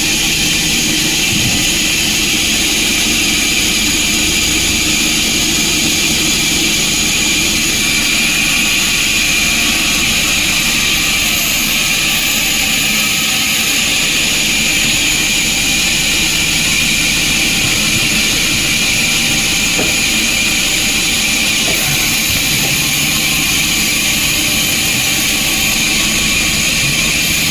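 Sawmill machinery running steadily, a loud, even hiss with no breaks.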